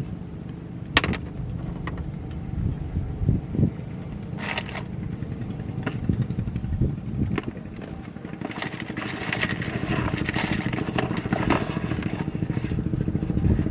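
A small engine running steadily, with scattered sharp clicks and knocks, and a crackling, scraping noise that builds from about two-thirds of the way in.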